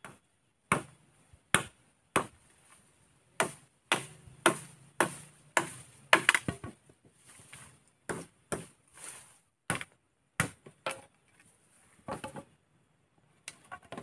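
A blade chopping at bamboo poles: a string of sharp chops, roughly one or two a second, with a short pause near the end.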